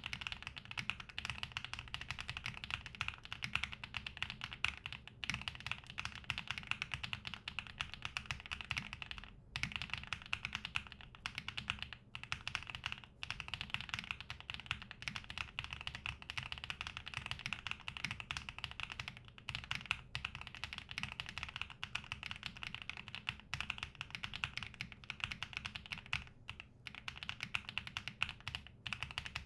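Continuous fast typing on a TB65-F mechanical keyboard with HMX Bamboo switches, an aluminum case and foam dampening inside. It is a dense, even stream of keystrokes with a few short pauses about a third of the way in.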